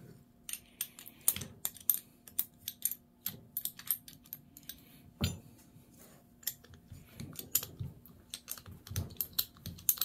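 Irregular light metallic clicks and clinks as a Garrett TE-62 turbocharger's center bearing housing, compressor backplate and a wrench are handled during teardown, with one louder knock about five seconds in.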